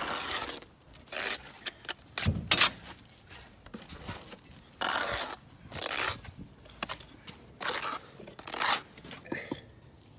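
Steel bricklaying trowel scraping wet mortar off the face of a brick course in a series of short strokes, with a few sharp taps in between.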